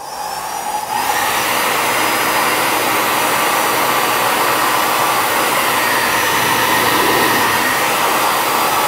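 Handheld hair dryer switching on and running steadily, a loud rush of blown air with a faint motor whine; it comes up to full strength about a second in.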